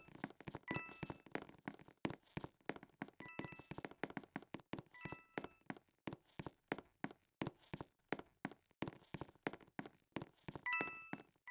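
Faint, irregular tapping and clicking, several strikes a second, with a brief cluster of high tones sounding four times: about a second in, twice in the middle and near the end.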